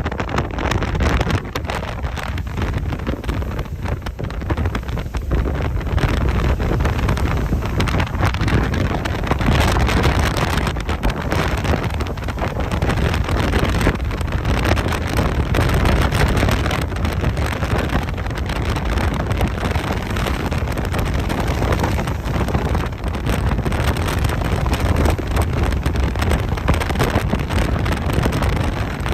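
Gusty wind buffeting the microphone in a continuous rumbling rush that swells and dips, mixed with the wash of rolling waves.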